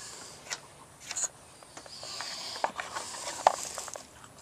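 Scattered light clicks and faint rustling from hands handling small parts, with one sharper click about three and a half seconds in.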